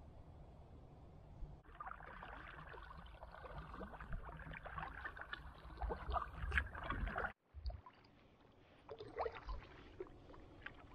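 Quiet splashing and dripping of a double-bladed paddle working a small pack canoe through calm water, with small clicks among the water sounds. The sound breaks off for a moment about seven seconds in, then comes back fainter.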